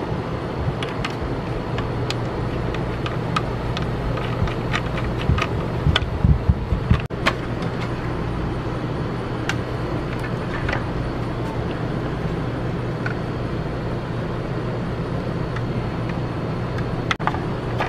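Scattered small clicks and taps of metal bolts and nuts being fitted into a motorcycle's plastic beak support bracket and fairing panels, over a steady low hum.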